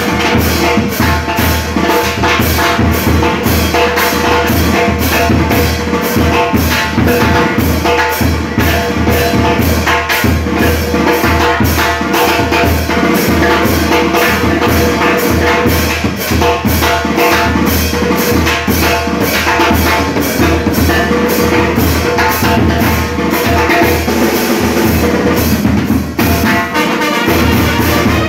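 Small brass band playing live and loud: trombones, trumpet and saxophone over a bass drum, crash cymbals and a metal-shelled drum keeping a steady, even beat.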